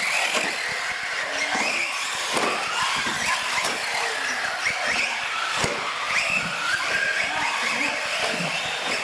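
Several radio-controlled UTV trucks racing on a smooth concrete floor: their electric motors whine, rising and falling with the throttle, over tyre skids and scrubbing.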